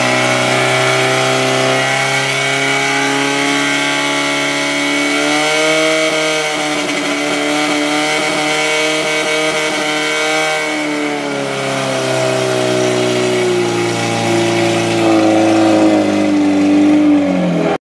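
Portable fire pump's engine running hard, pumping water through the attack hoses to the nozzles. It makes a loud, steady engine note that wavers a little in pitch and cuts off abruptly at the very end.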